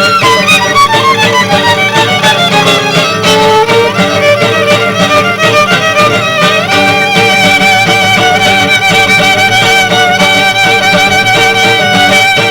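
Violin and acoustic guitar duo playing jazz-fusion: the violin runs through quick notes, then from about halfway holds one long note with vibrato, over steady rhythmic guitar accompaniment.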